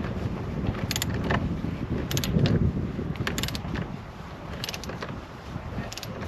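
Hand socket ratchet clicking in short bursts, about one every second, as it works the steering wheel retaining bolt.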